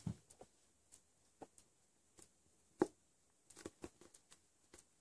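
Faint, scattered light taps and clicks of a marker tip and fingers working a small lump of soft modelling clay on a desk mat, with one sharper tap a little before three seconds in.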